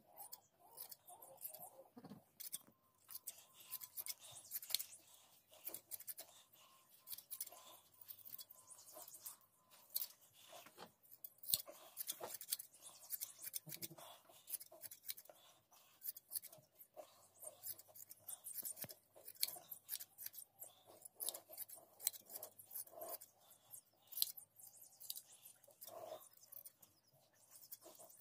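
Hand-held sheep blade shears snipping through a sheep's wool fleece, a long irregular run of short, crisp snips.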